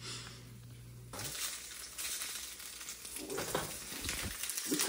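Food frying, a steady sizzle that starts up about a second in.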